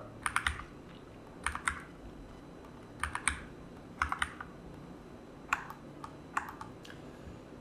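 Computer keyboard keys clicking in short clusters of one to three quick presses, roughly a second apart, with a faint steady hum between them.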